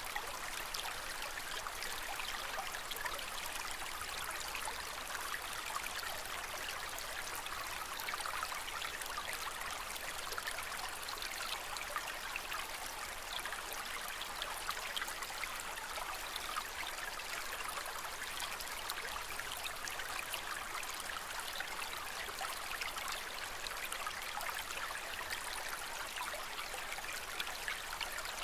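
Aquarium water trickling and splashing steadily, a continuous fine bubbling hiss.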